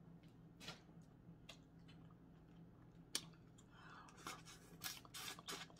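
Faint wet mouth and hand sounds of someone peeling and eating boiled crawfish: scattered soft clicks and smacks, coming thicker in the last two seconds. A low steady hum runs underneath.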